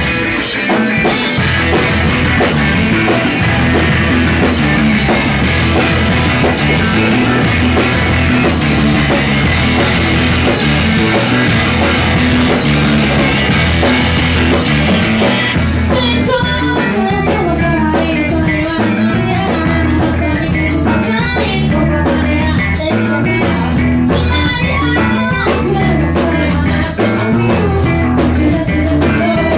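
Math rock band playing live: electric guitars, electric bass and drum kit together at full volume. About halfway through, the dense full-band wash drops suddenly to a sparser passage with clearer guitar lines.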